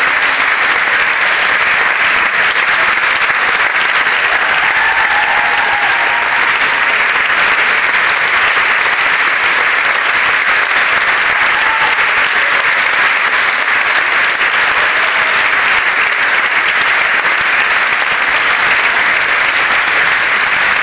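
Audience applauding steadily, a dense, unbroken clapping.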